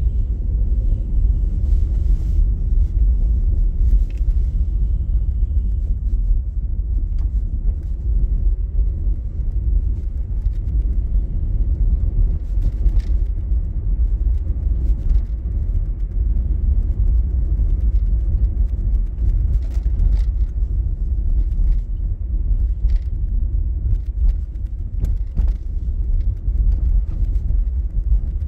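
Steady low rumble of a car driving, engine and road noise heard from inside the cabin, with a few faint clicks.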